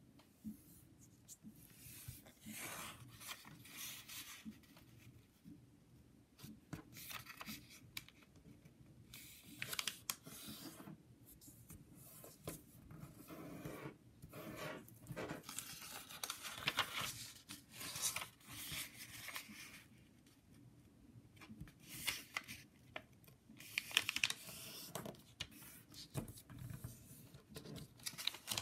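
A sheet of origami paper being folded and creased by hand. Irregular rustling and crinkling strokes come as fingers slide along and press down the folds, with short sharp crackles of the paper now and then.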